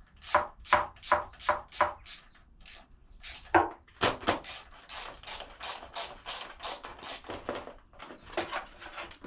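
Ratchet spanner working the bike's rusty bolts loose: quick back-and-forth rasping strokes, a few a second, with a short break about two seconds in.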